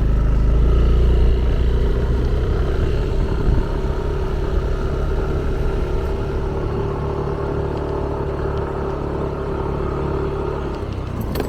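Motorbike engine running steadily on the ride, with a low rumble that is strongest in the first couple of seconds.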